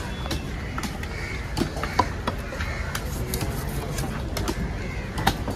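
Outdoor fish-market ambience with crows cawing, a low murmur of voices, and scattered sharp clicks and knocks as a knife works into a large barracuda on a wooden chopping block.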